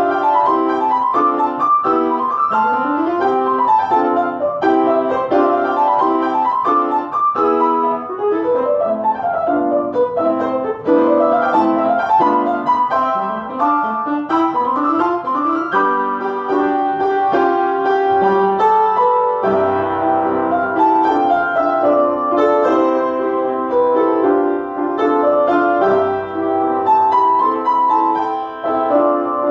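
Solo piano playing a lively passage of quick repeated chords and fast runs, moving to fuller, more held chords about halfway through.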